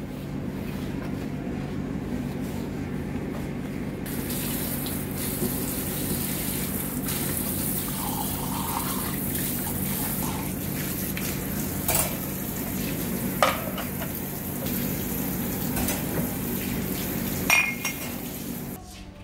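Kitchen tap running into a sink while ceramic mugs are rinsed, the water's hiss growing stronger about four seconds in. A few sharp clinks of the mugs knocking together, the last ones as they go into the dish rack near the end.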